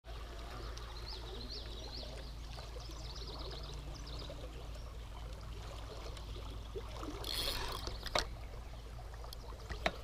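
River water running steadily over the rocks of a broken dam and its small waterfall, with a few high chirps in the first few seconds and some sharp clicks near the end.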